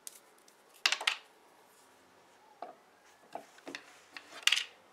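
Sharp metallic clicks and clacks of home-made hog-ring pliers being worked and handled over a plywood board. A loud cluster comes about a second in, a few lighter ticks follow, and another loud clack comes near the end.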